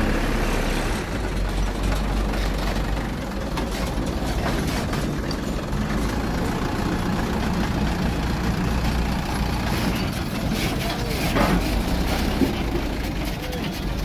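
Diesel engine idling steadily, a low even rumble.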